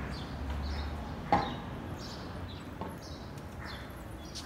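Outdoor ambience with small birds chirping briefly again and again in the trees, over a low rumble, and one sharp knock about a second and a half in.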